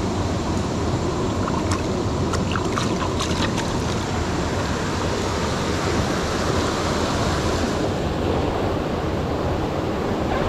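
Steady rushing of stream water, with a few faint clicks about two to four seconds in.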